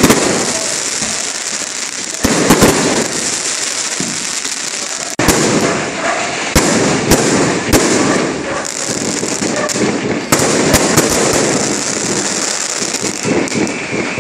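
Fireworks going off overhead: repeated sharp bangs of bursting shells, with a cluster of them in quick succession about halfway through. A continuous crackle and hiss of burning stars fills the gaps between them.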